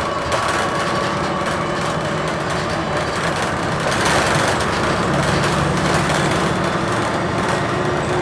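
Bus ride heard from inside the cabin: the Cummins Westport ISL-G natural-gas engine running under way with road and body noise. The engine gets a little louder about four seconds in, then holds a steady low hum.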